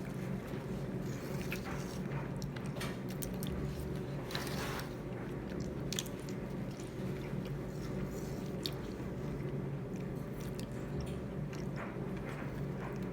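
A person eating close to the microphone: chewing with scattered short crunchy bites, over a steady low hum.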